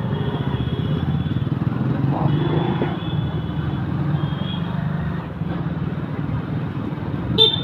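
Motorcycle engine running steadily, with a sharp click near the end.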